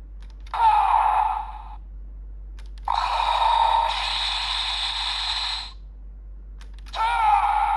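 GUTS Sparklence transformation toy playing three short electronic sound effects through its small tinny speaker, each one set off just after a faint plastic click.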